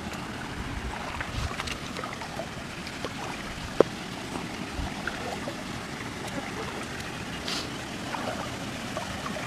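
Water sloshing and swirling as a person wades waist-deep through a shallow muddy stream, a steady watery rush with small scattered splashes. One sharp click stands out about four seconds in.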